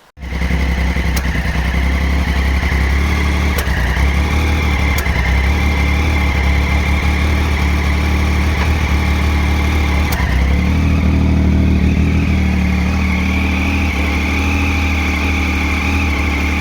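Triumph Street Triple motorcycle's inline three-cylinder engine running steadily at idle, its note shifting slightly about ten seconds in. The mechanic suspects the engine is drawing in outside air, the cause of its misfiring and stalling.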